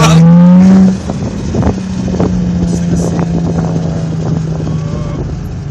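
Infiniti G35's 3.5-litre V6 through a TopSpeed Pro 1 aftermarket exhaust, rising in pitch under throttle for about the first second, then easing off to a steady drone that sinks slowly in pitch.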